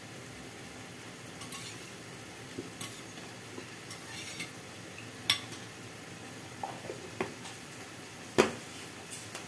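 Flat metal spatula stirring soft bottle gourd in a metal kadai, with a few sharp knocks and scrapes against the pan, the loudest near the end, over a steady low sizzle of the gourd cooking in oil.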